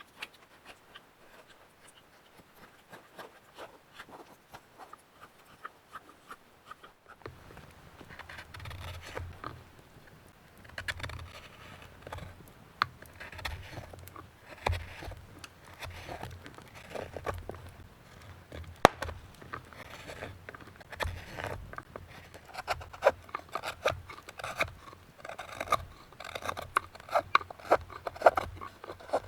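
A carving blade scraping wood while hollowing out the bowl of a kuksa cup, in many short, repeated strokes. The scraping is faint at first and gets louder and busier from about seven seconds in.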